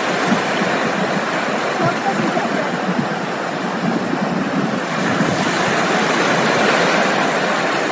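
Small waves washing onto the beach in a steady hiss, growing a little louder in the second half, with low rumbles of wind on the microphone.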